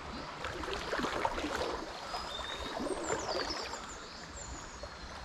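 River water flowing and babbling, with a few short high bird chirps about halfway through.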